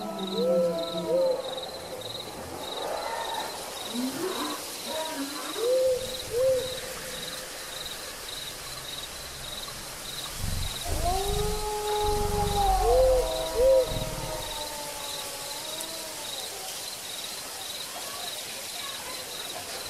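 Hooting, sliding tones in two long phrases, one at the start and one a little past the middle, over a faint regular ticking of two or three a second. Low rumbling thumps sound under the second phrase.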